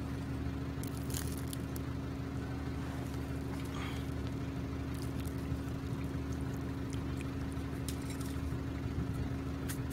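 A steady low hum with a constant tone, with a few light clicks and rattles of gravel and a tin can being handled.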